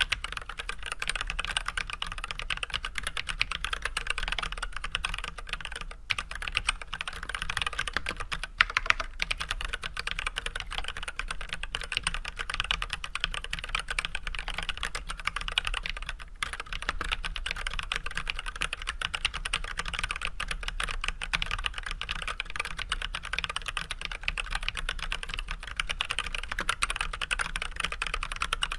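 Steady, fast typing on an Archon AK87 hot-swap mechanical keyboard with unlubed Everglide Red 67g linear switches fitted with switch films and white Leopold PBT keycaps. It is a dense run of keystroke clacks, with a few brief pauses.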